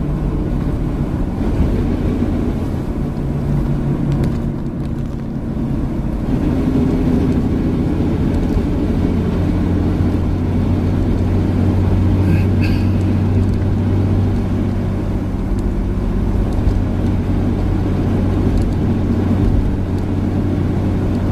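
Nissan Patrol Y60 driving at a steady speed, its engine droning evenly with road noise, heard from inside the cabin.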